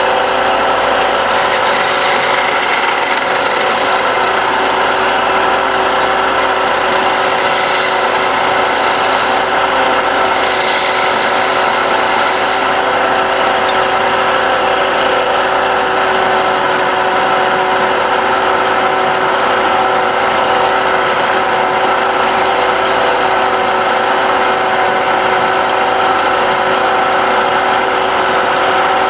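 Wood lathe running steadily, with a tool rubbing and scraping against the spinning wooden pestle blank, a steady hum under a rasping hiss.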